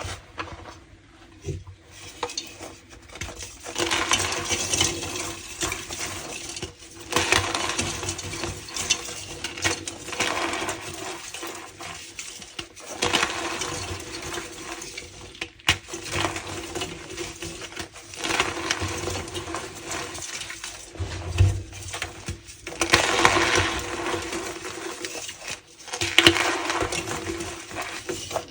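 Tie-dyed gym chalk blocks being crushed and squeezed, a squeaky, crumbly crunching that comes in repeated surges a few seconds long.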